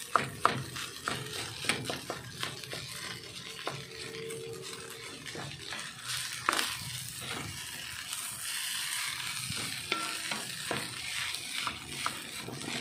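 Wooden spatula stirring and scraping fried rice around a metal wok, with irregular knocks against the pan over the faint sizzle of the rice frying.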